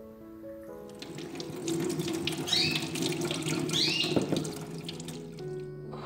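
Water running from a tap into a sink for a few seconds, splashing and gurgling, over soft piano music.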